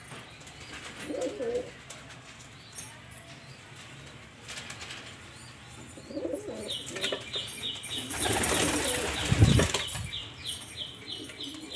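White fantail pigeons cooing twice, then a loud flurry of wing flapping about eight seconds in that ends in a low thump. A fast, high ticking repeats through the second half.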